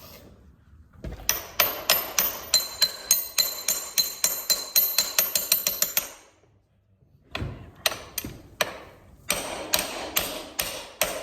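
Metal-on-metal hammer blows driving a wheel axle into a dirt bike: a fast, even run of about four ringing strikes a second, a short pause, then a second, less regular run of strikes.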